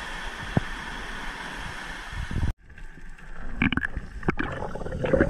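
Surf breaking and washing up on a sandy beach, a steady rush of waves. About two and a half seconds in it cuts off abruptly to muffled underwater sound with a few short knocks.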